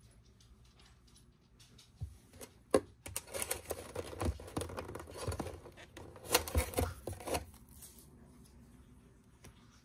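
Rustling and crinkling of makeup packaging being handled, with several sharp clicks and knocks among it; it starts about two seconds in and dies away after about seven seconds.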